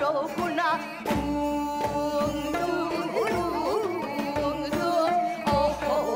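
Women singing a Korean folk song (minyo) with heavy wavering vibrato, over traditional instrumental accompaniment with drum strokes.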